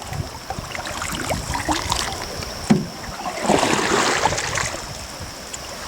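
Canoe paddling: paddles dipping and pulling through lake water with small splashes and drips, a sharp knock about two and a half seconds in, and a louder swish of water about three and a half seconds in.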